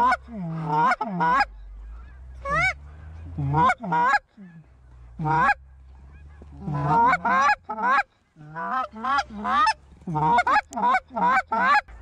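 Goose call blown close by: runs of short honks and clucks, each breaking from a low note up to a high one, with brief pauses between runs.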